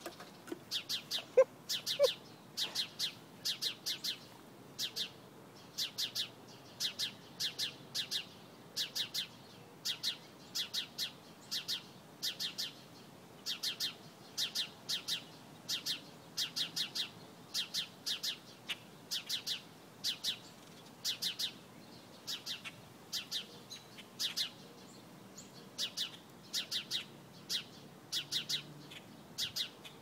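Small birds chirping over and over: short, high chirps in quick clusters of two to four, repeating through the whole stretch. Two short, sharp, louder sounds come about one and a half and two seconds in.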